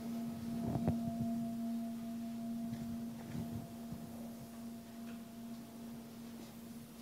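Low ringing tone of a struck bell, lingering and slowly fading, with faint knocks and shuffles from people in the room.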